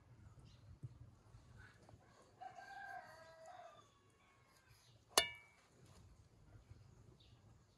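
A rooster crows once, faintly, a call of about a second and a half. A little over a second later comes a single sharp clink with a short ring, the loudest sound here.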